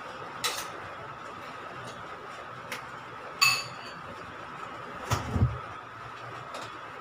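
Kitchen clicks and clinks: a bright ringing clink of a dish or utensil a little after three seconds in, then a low thud as a refrigerator door is pulled open, over a faint steady hum.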